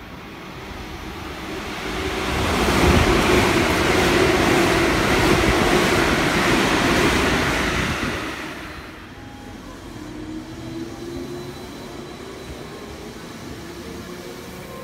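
A train running past a station platform: a loud rushing rumble that builds over about two seconds, holds for several seconds, then falls away. It gives way to a quieter JR Central 313-series electric train, its motor whine rising in pitch as it accelerates.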